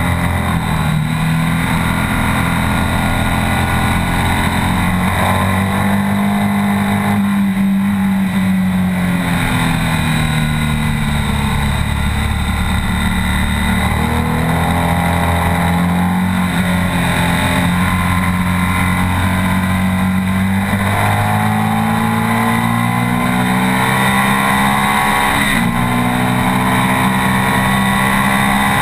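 BMW R 1200 S's boxer twin engine pulling hard under load at track speed. Its pitch climbs as the revs rise and steps down at gear changes several times, over steady wind rush.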